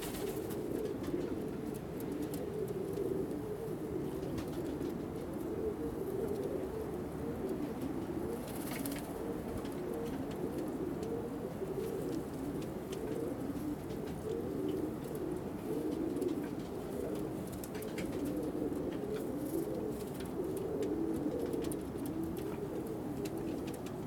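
A flock of Donek pigeons cooing continuously, many birds overlapping into a steady low warbling chorus. A brief wing flap near the start.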